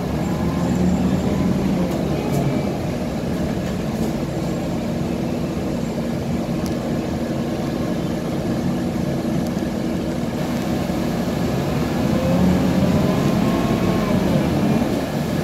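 Cabin noise inside a Scania K320 articulated city bus underway: steady engine rumble and road noise. Near the end a faint whine rises in pitch and the sound grows a little louder as the bus picks up speed.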